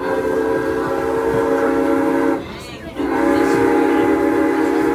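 Steam whistle of Strasburg Rail Road's Norfolk & Western 4-8-0 locomotive No. 475 blowing two long blasts with a short break between them. The blasts are loud and hold a steady pitch.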